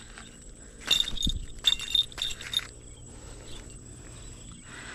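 Brown goshawk mantling and shifting over its fresh kill: short bouts of feather and leaf rustling with small metallic jingles, clustered about a second to two and a half seconds in. A faint steady high insect whine runs underneath.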